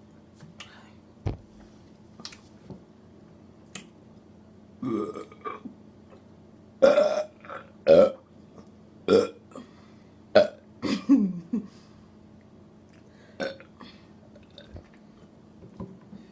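A run of deliberate human burps from drinking soda: about half a dozen short, loud belches between about five and eleven seconds in, and one smaller one near the end. A few faint clicks come before them.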